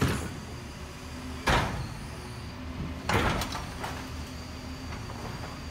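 Garbage truck's diesel engine running steadily, with sudden loud clattering bangs right at the start, about a second and a half in, and a double one about three seconds in, as the truck handles and empties a wheelie bin.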